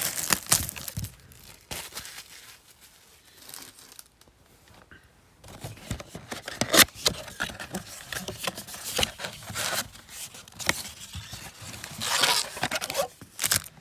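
Cardboard NBA Hoops Premium Stock blaster box being torn open and its foil-wrapped card packs pulled out: paper tearing, crinkling and rustling with scattered clicks, quieter for a few seconds about two seconds in, then busier again.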